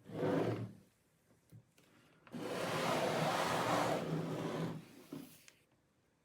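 Laptop packaging being handled: a short rustle, then a longer rushing, scraping noise of about two and a half seconds.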